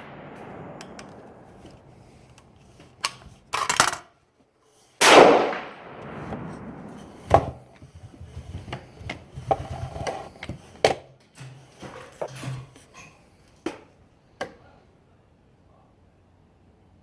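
AR-15 rifle shot about five seconds in, a sharp report followed by a long fading echo, as the echo of a previous shot dies away at the start. Smaller clicks and knocks follow over the next several seconds.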